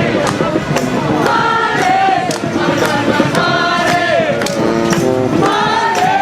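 Street brass band playing a tune in a parade, horns holding and sliding notes over drums and cymbals that keep a steady beat.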